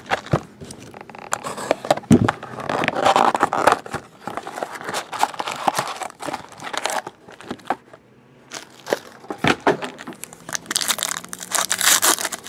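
Paper and foil wrappers rustling and crinkling as a trading-card box is unpacked by hand, with scattered light clicks and knocks. Near the end, a foil card pack crinkles as it is handled.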